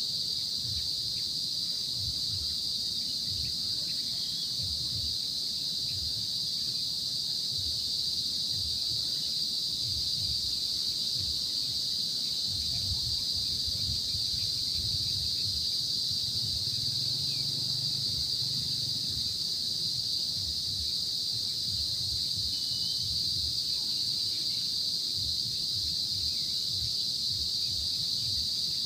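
Steady chorus of insects, a constant high-pitched drone that never lets up, over a low, uneven rumble.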